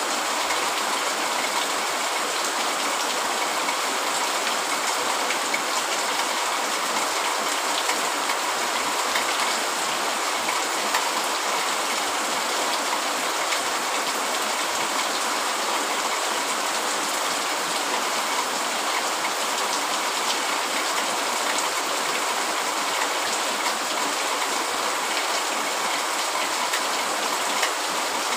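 Heavy rain falling steadily: an even hiss with fine, scattered patter of drops, unchanging throughout.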